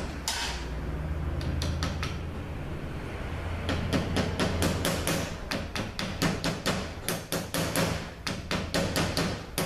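Light hammer taps on the 48RE transmission valve body, seating the boost tube: a few taps, then a quick run of about three to four a second through the second half. A steady low hum sits underneath for the first half.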